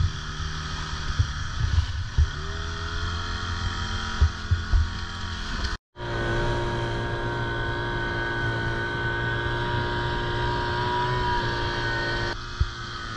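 A boat's motor running under way; about two seconds in its pitch rises as it picks up speed, with a few thumps over the first five seconds. After a brief break it runs on at a steady, even pitch.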